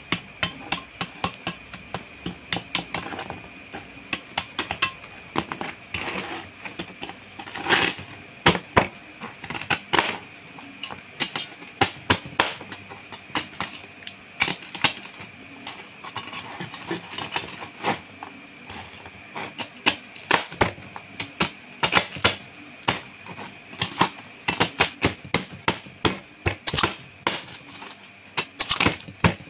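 A large knife chopping through crisp deep-fried pork belly on a plastic cutting board: a long run of irregular sharp crunches and crackles as the crispy skin shatters, mixed with knocks of the blade on the board.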